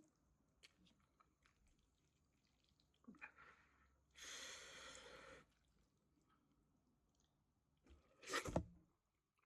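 Close-miked eating sounds: faint mouth clicks, a steady hiss lasting a bit over a second about four seconds in, and one loud crunchy bite near the end.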